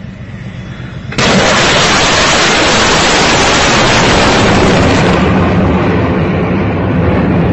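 OTR-21 Tochka ballistic missile launching: its solid-fuel rocket motor ignites about a second in with a sudden, loud roar that holds on steadily, the hiss thinning over the last couple of seconds as the missile climbs away.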